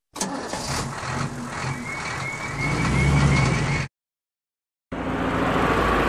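Cartoon sound effect of a truck crane's engine running, growing louder about two and a half seconds in, then cutting off suddenly. After a second of silence, another machine engine noise starts.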